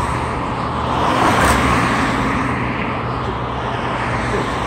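Steady road traffic noise that swells and fades as cars pass.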